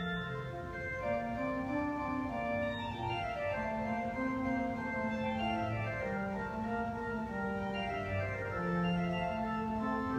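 Church pipe organ playing a slow piece in held, overlapping chords, with a bass line moving underneath.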